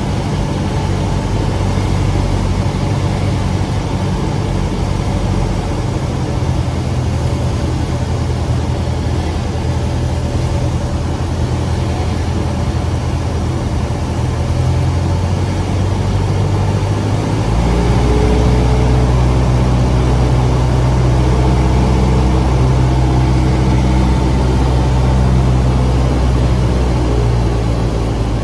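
Cessna 172's propeller engine droning steadily, heard from inside the cockpit with airflow noise. About two-thirds of the way through, the engine note changes and grows louder.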